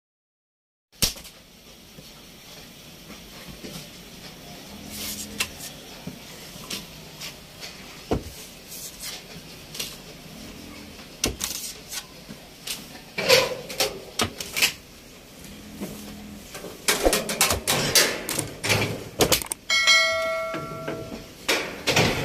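Hand handling of socks and paper inserts on a table: irregular rustles and light taps, busier in the second half. A short electronic chime sounds near the end.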